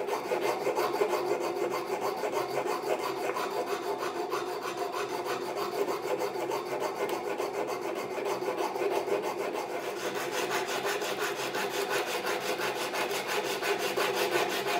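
Sandpaper rubbing back and forth in quick, even strokes along the sawn curved edge of a wooden bench stretcher, smoothing away the rough saw marks.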